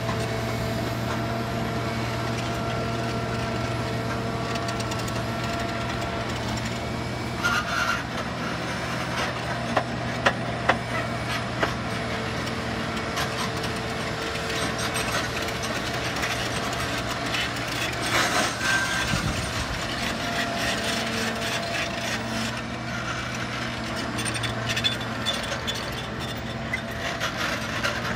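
Caterpillar 973 track loader's diesel engine running steadily as it works, with occasional sharp knocks and clanks from the bucket and tracks.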